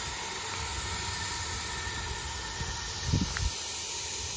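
1922 Stanley Steamer's burner running, a steady hiss over a low fluttering rumble, its firing-up valve just opened a little more. A brief louder low puff comes about three seconds in.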